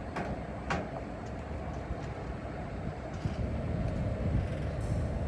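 Vehicle engine running steadily, with a few light clicks; it gets slightly louder about three seconds in.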